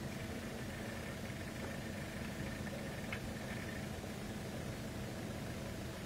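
Vehicle engine idling steadily: a low, even hum over a hiss, with a brief faint high chirp about three seconds in.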